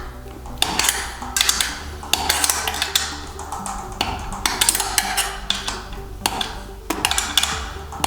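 Metal clinks and clicks of a 10 mm spanner working the bolts on the steel bracket above a Hörmann garage door opener's motor head, loosening them a turn at a time, in irregular strokes several a second. Background music plays underneath.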